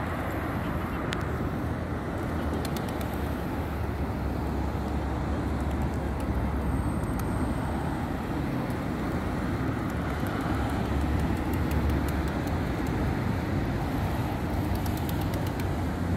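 Steady road traffic noise: cars running along the street, an even low rumble with a few faint ticks.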